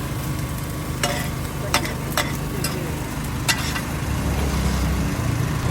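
Char koay kak (radish rice cake) stir-frying in a wok, sizzling steadily, with about five sharp clanks of a metal spatula against the wok. A low rumble builds near the end.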